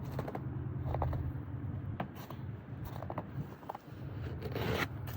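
Snow being brushed and scraped off a car: short scraping strokes about once a second, and one longer sweep near the end, over a steady low hum.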